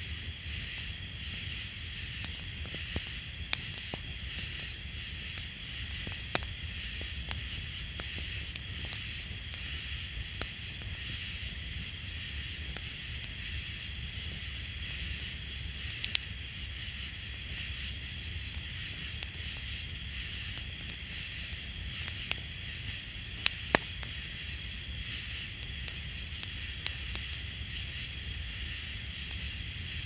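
Steady outdoor ambience: a dense, high, insect-like chorus over a low rumble, with scattered sharp clicks, a few louder ones after the middle.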